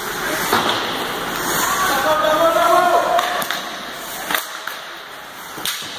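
Ice hockey play in a rink: distant shouting voices, then two sharp knocks from sticks and puck, about four and a half seconds in and again near the end.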